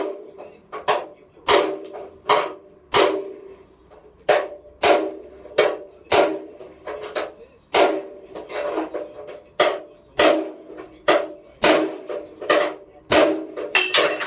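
Hammer blows on a steel punch driving rivets out of a steel vehicle chassis frame. The strikes are sharp and metallic, about three every two seconds, and each rings briefly.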